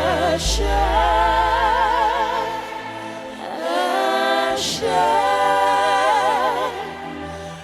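Gospel worship song sung by a choir and congregation with wavering vibrato, over sustained low bass notes, in two long phrases with a short dip between them.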